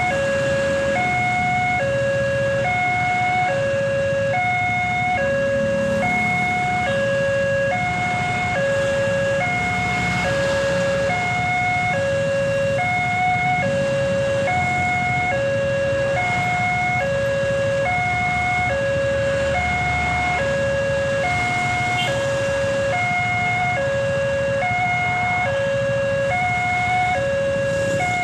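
Railway level-crossing warning siren sounding a steady two-tone alarm, a lower and a higher note alternating about once a second, with a hoarse, almost laughing quality. A low rumble runs beneath it.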